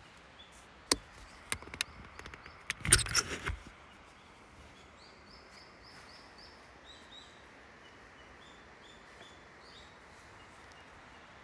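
Handling noise: a few sharp clicks, then a burst of knocking and rustling in the first few seconds as the camera is moved about. After that, a bird calls in quick runs of short repeated high notes over a faint steady outdoor hiss.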